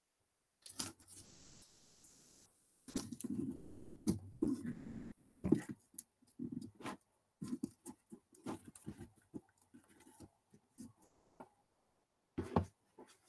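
Irregular rustling, tapping and clicking of small craft materials being handled, with a denser stretch of rustling a few seconds in and a few sharper clicks near the end.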